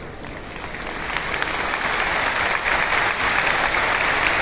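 Arena audience applauding. The clapping swells over the first two seconds and then holds steady.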